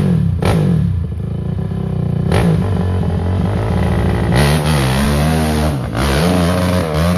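Enduro dirt bike engine running and revving, its pitch rising and falling repeatedly through the second half, with two sharp knocks in the first few seconds.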